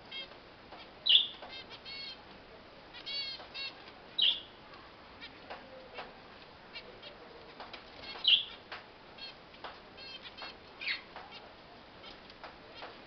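Caged finches calling: four loud short calls stand out, with runs of quick repeated chirps between them, over light wing flutters and clicks as the birds move about the cage.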